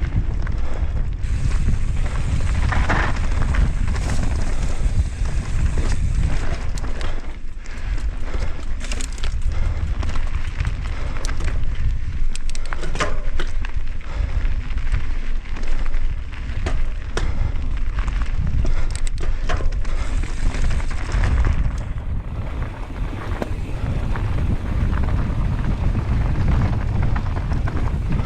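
Heavy wind rumble on the microphone of a mountain bike descending fast, with a constant clatter of tyres and bike over rough, rocky trail.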